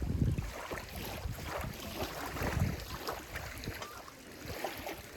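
Small waves lapping at a lakeshore, in uneven swishing surges of water.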